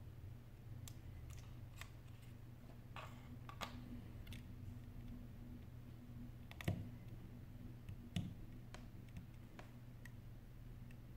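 Scattered small clicks and taps of fingertips and small parts on an opened iPhone 8 Plus during disassembly, with two louder knocks a little past the middle, over a steady low hum.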